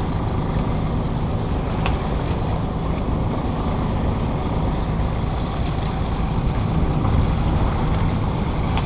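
A cruising sailboat motoring under way: the steady hum of its engine under the rush of water along the hull, with wind buffeting the microphone.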